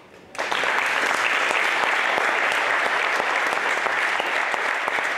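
Congregation clapping, the applause breaking out suddenly a moment in and then going on steadily.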